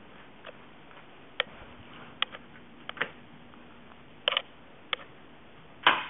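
Ceiling fan running with a steady hiss and a faint low hum, through a dull-sounding old digital camera microphone. About six sharp, irregularly spaced clicks and knocks sit over it, the loudest just before the end.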